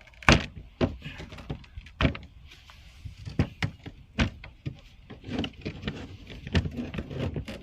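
Irregular knocks and clunks of hardware and a storage bin being handled and pulled out in a jon boat during a rod-holder install. The loudest knock comes about a third of a second in, with scattered clicks after it.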